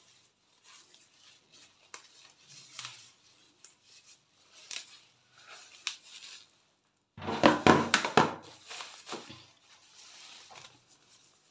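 Cassava leaves being pulled off their stalks by hand: short rustles and small snaps of leaves and stems, in scattered bursts. About seven seconds in comes a louder cluster of knocks and rustling, the loudest part.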